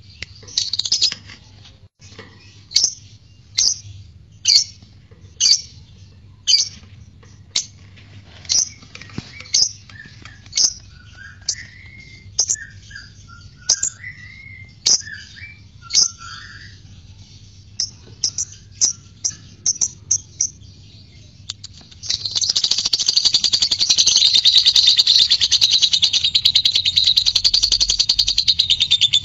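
Blue masked lovebird calling: sharp high chirps about once a second, with some softer twittering between them. About three quarters of the way through it breaks into a loud, long, rapid chattering trill, the continuous 'ngekek' song that lovebird keepers prize.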